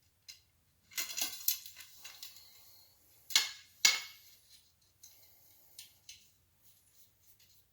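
Metal bicycle spokes clinking and rattling against each other and the hub as they are dropped into the hub flange holes, with two sharp clinks about halfway through.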